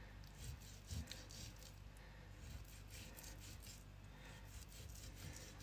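Faint knife cutting: a large kitchen knife scoring raw pork belly, with soft scraping strokes through the skin and fat and light clicks as the blade meets the plastic cutting board.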